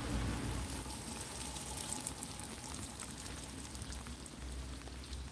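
Rain falling on an open umbrella overhead: a steady hiss of rain with many small drop ticks on the canopy.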